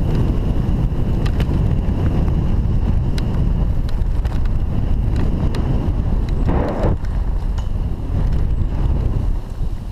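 Mountain bike rolling fast down a dirt forest trail: a steady low rumble of wind buffeting the microphone and tyres on dirt, with scattered sharp rattling clicks from the bike. A brief louder rush comes about six and a half seconds in.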